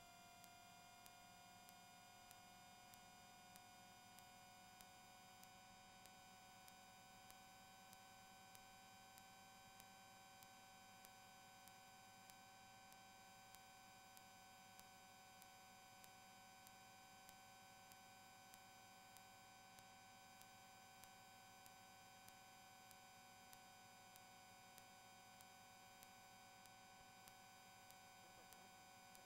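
Near silence: a faint, steady electronic whine with faint ticks about twice a second, and no rotor or engine sound.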